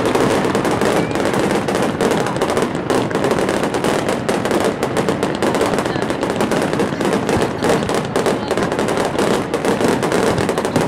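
Fireworks barrage: many shells bursting in quick succession, a dense, unbroken run of bangs and crackling.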